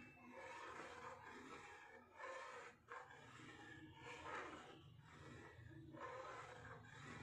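Faint scraping of a steel ladle stirring thickening milk in an aluminium kadhai, soft swells with each stroke, over a low steady hum.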